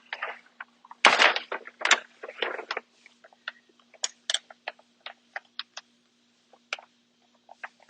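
Paper backing being peeled off a vinyl wall decal: loud crinkling rustles for a couple of seconds, then a run of small sharp crackles and pops as the backing comes away from the adhesive.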